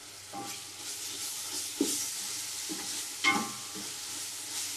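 Wooden spatula stirring and scraping ginger-garlic paste through fried onions and herbs in a large metal pot, the masala sizzling in the oil as the raw smell of the paste is cooked off. Twice the spatula hits the pot with a louder clack.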